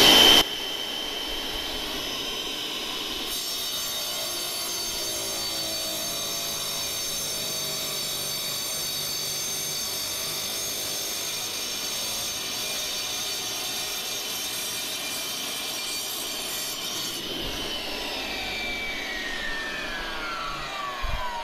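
DeWalt wet tile saw with a 10-inch water-fed blade running steadily as it cuts through a natural-stone paver. Near the end the motor is switched off and its pitch falls as the blade winds down.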